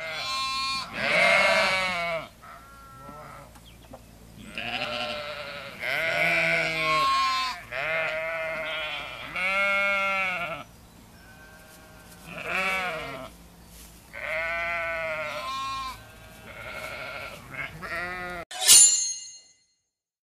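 About a dozen long, wavering bleats, one after another, each lasting around a second. A short, sharp, loud high-pitched sound comes just before they cut off near the end.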